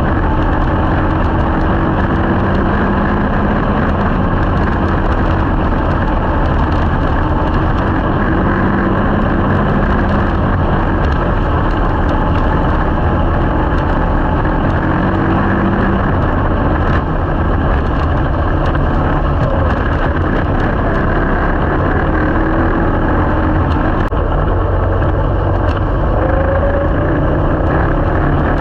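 Slingshot race car's engine running, heard from inside the cockpit, its pitch drifting up and down as the throttle changes.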